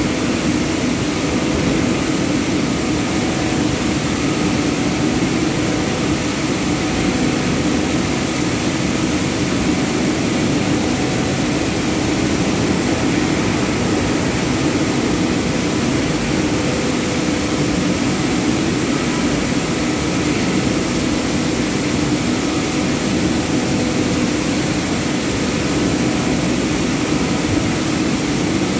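Palm oil mill machinery running, with a large rotating drum turning over a conveyor trough: a steady, loud industrial din with a low hum that does not change.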